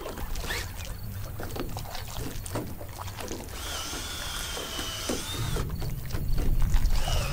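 Water splashing and sloshing around a wading person, then a cordless drill with a long paddle bit whirs steadily for under two seconds a little past the middle and starts again at the very end. A low rumble runs underneath, strongest late on.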